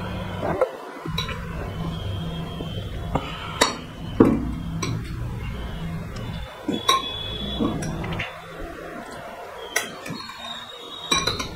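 Steel ladle clinking against a glass serving bowl and metal plates as curry is served onto rice, with a sharp clink every second or two, some ringing briefly, over a low steady hum.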